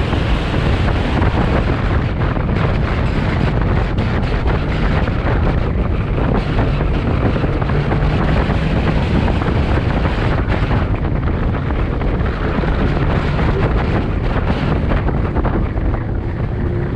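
Chevrolet C8 Corvette on the move: a steady engine drone under heavy wind rush buffeting the microphone.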